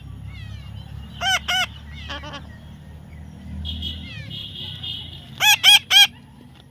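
Parrot squawking in short, sharp calls: two about a second in, a fainter pair soon after, a longer buzzy chatter in the middle, and three loud squawks in quick succession near the end.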